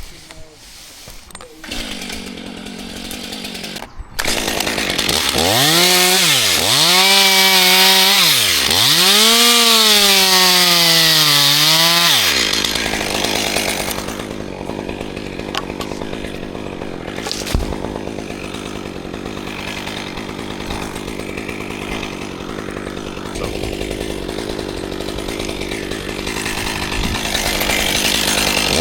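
Chainsaw engine revving, its pitch dropping and climbing several times, then running on as a steadier, rougher noise for the second half.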